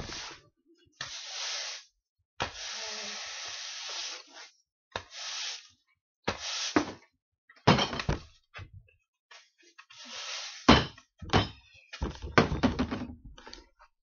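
Extra-coarse bristled broom sweeping loose hay across a concrete floor in a series of scraping strokes, with several sharp knocks in the second half.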